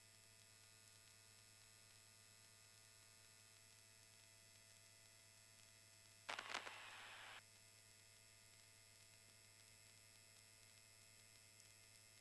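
Near silence on the headset audio feed: a steady electrical hum. About six seconds in comes a hiss of radio static lasting about a second, opening and cutting off sharply like a transmission with no words.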